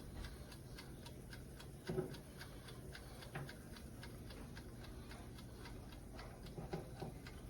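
Wind-up timer of a convection toaster oven ticking quickly and evenly, about four to five ticks a second, as it counts down during cooking.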